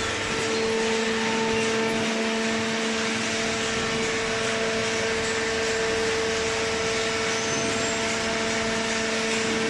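A hydraulic baler's electric motor and pump running steadily: an unchanging hum with an even hiss over it.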